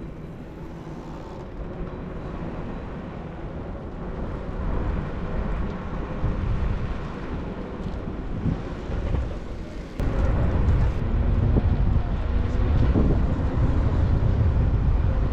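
Wind buffeting the microphone during an electric scooter ride, with a low rumble that jumps suddenly louder about ten seconds in.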